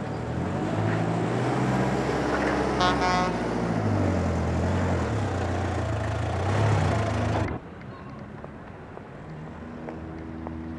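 Engine running with shifting revs, with a short horn toot about three seconds in. It cuts off abruptly about two-thirds of the way through, leaving a quieter outdoor ambience with a faint low hum.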